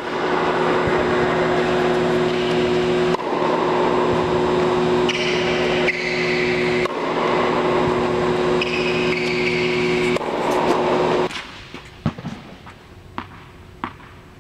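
Loud steady mechanical hum with several fixed tones, which drops away abruptly about eleven seconds in. Then a few sharp knocks of a tennis ball bounced on an indoor court before a serve.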